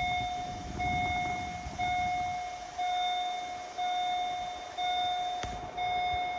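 Level-crossing warning bell ringing, a single clear ding about once a second, each stroke fading before the next, signalling that a train is approaching.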